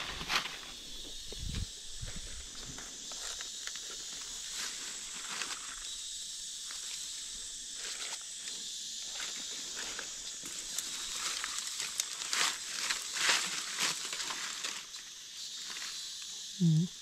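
Dry leaf litter rustling and crackling in irregular bursts, thickest in a cluster near the end, over a steady high-pitched hiss.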